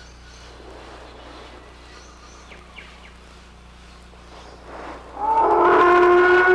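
Quiet outdoor ambience with faint bird-like chirps. About five seconds in, a loud honking call with several steady pitches starts abruptly and holds: a sound-effect dinosaur call.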